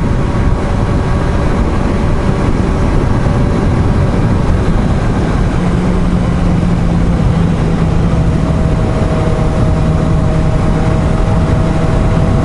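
Motorcycle riding at steady speed, with heavy wind noise over the microphone and the engine hum holding a steady pitch from about halfway through.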